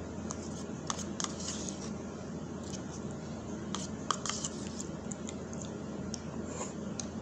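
A small plastic spoon scraping and clicking against the inside of a plastic cup of oatmeal, with soft eating noises. The short clicks come in clusters: about a second in, around four seconds in, and near the end.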